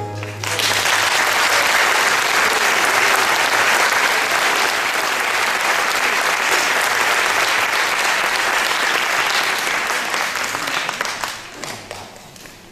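Theatre audience applauding at the end of a dance piece, the clapping breaking out about half a second in as the music's last low note dies away, holding steady, then fading out near the end.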